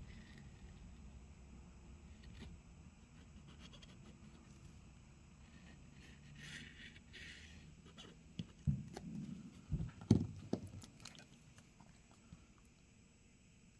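Faint handling sounds of small-phone repair work: a brief rustling scrape about six seconds in, then a cluster of light knocks and taps a couple of seconds later, over a low steady hum.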